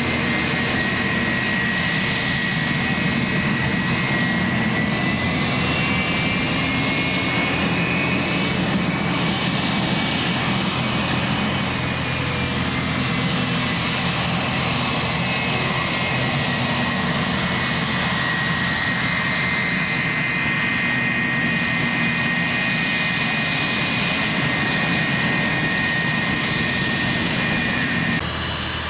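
Aircraft engine running steadily, with a constant high whine over the engine noise. The whine stops shortly before the end.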